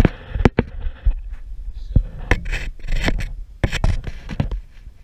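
Hands handling plastic parts and wiring at the back of a car headlight housing: scraping and rubbing with a string of sharp plastic clicks, as an LED headlight bulb and its cables are fitted in place.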